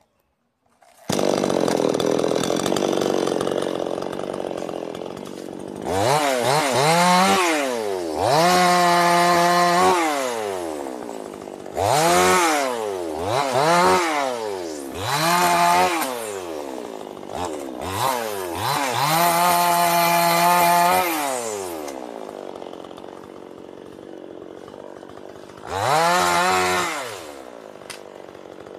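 Two-stroke chainsaw revving up and down over and over, its pitch rising and falling about seven times. Twice it holds at full speed for a second or two.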